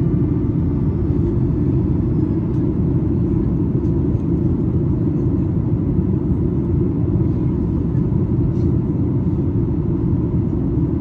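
Steady cabin noise inside a Boeing 737-8 MAX during approach, heard from a window seat by the wing. Airflow and the CFM LEAP-1B engines make a dense low rumble, with faint steady tones above it.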